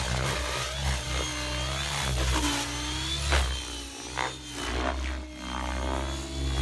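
Radio-controlled model helicopter in flight, its motor and rotor whine rising and falling in pitch as it manoeuvres.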